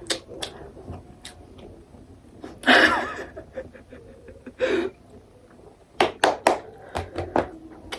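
Close-up eating noises while eating instant ramen: scattered small clicks and mouth smacks, a quick run of them near the end, with two short, louder noisy sounds about three and nearly five seconds in.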